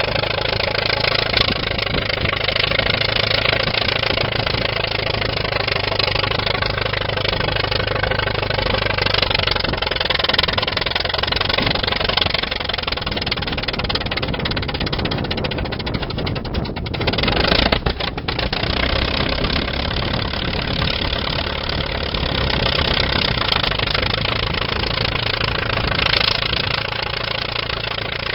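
1931 Allis-Chalmers crawler bulldozer's engine running steadily, with a brief louder surge about two-thirds of the way through.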